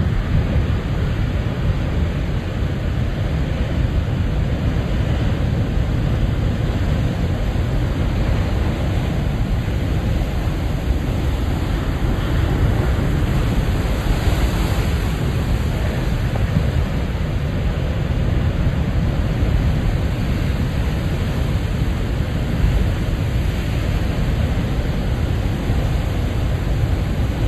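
Ocean surf: a steady rush of breaking waves with a heavy low rumble, swelling and easing, with a slightly brighter surge about halfway through.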